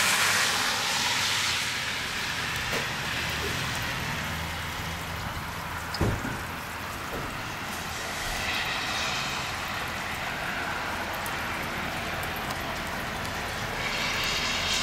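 Freezing rain and sleet falling on pavement and grass, a steady hiss, with a low steady hum underneath. A single sharp knock comes about six seconds in.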